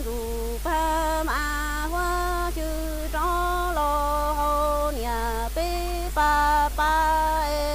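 A woman sings Hmong kwv txhiaj (traditional sung poetry) unaccompanied, holding long notes that step between a few pitches with short breaks between phrases. A steady low hum runs underneath.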